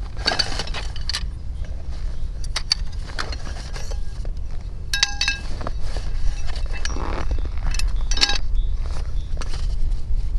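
Fishing tackle being handled as a feeder rod is drawn out of a fabric rod holdall: rustling and scattered light clicks and metallic clinks, two of them ringing briefly about halfway through and again near the end, over a steady low rumble.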